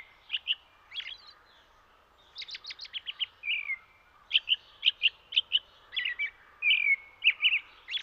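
Small songbird chirping: clusters of short, sharp chirps mixed with a few downward-sliding whistled notes, with quiet gaps between the clusters.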